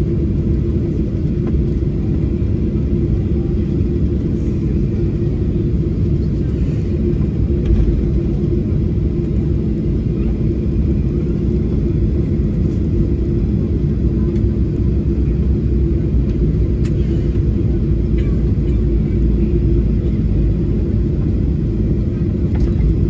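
Boeing 737-800's CFM56 engines running at idle as the aircraft taxis, heard inside the cabin: a steady low rumble with a constant hum.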